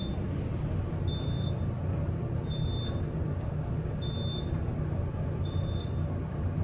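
Short high electronic beep from an elevator, repeating evenly about every one and a half seconds, over a steady low hum of the elevator.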